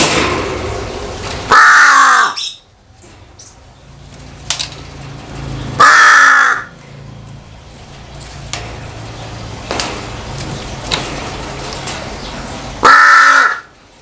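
Crow cawing three times, each caw just under a second long and several seconds apart.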